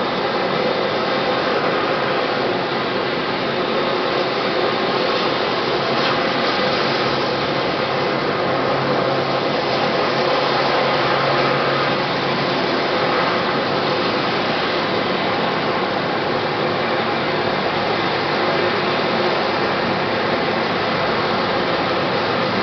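Sikorsky HH-60J Jayhawk helicopter sitting on the ground with its turbine power running, a steady whine and rush with no rotor beat.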